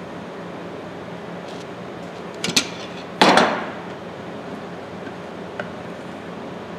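Large steel tongue-and-groove pliers being picked up and shifted on a concrete floor. A couple of light clicks are followed by one louder metallic clatter about three seconds in, over a steady room hum.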